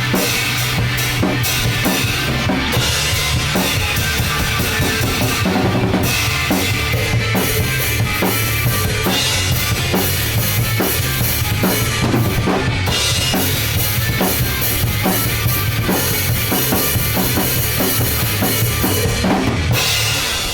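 Hard rock music with a loud, busy drum kit: kick, snare and cymbals driving a steady beat.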